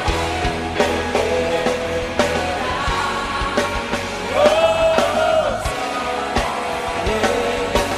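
Live worship song: a man singing lead over a full band with a steady drum beat, holding one long sung note in the middle.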